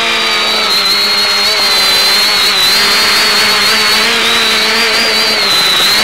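X550AIOP quadcopter's electric motors and propellers running in flight over a steady hiss, a whine whose pitch wavers slightly up and down with the throttle.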